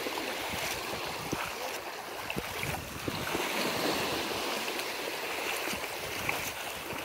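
Shallow sea water splashing and lapping around someone wading, a steady wash of water with small scattered splashes.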